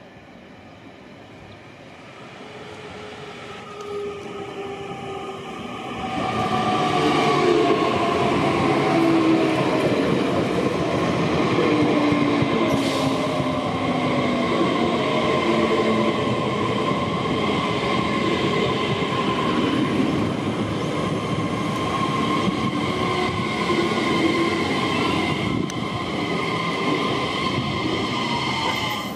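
A Queensland Rail Tilt Train passing along the platform. It grows louder as it approaches, then runs loud and steady as the carriages go by. Whining tones over the wheel and rail noise slide down in pitch in places.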